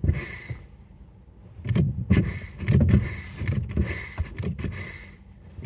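Peugeot 308 brake pedal being pumped with the engine off: one short squish near the start, then about six quick squishes with pedal knocks from about two seconds in. The squish comes from the left side of the car, where the owner believes the brake master cylinder sits; the brakes still work normally.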